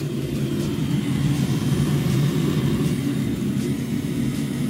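Steady low mechanical rumble from under the truck, most likely the diesel-fired Eberspacher coolant heater burning and circulating hot coolant.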